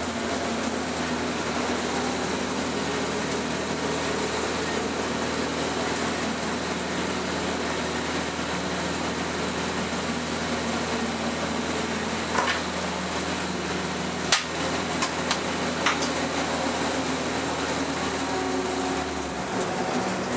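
Alfa Romeo 155 Turbo race car's engine running steadily at low revs as the car rolls slowly, heard from inside the stripped cabin. A few sharp clicks come about two-thirds of the way through, and the deepest part of the drone drops away near the end.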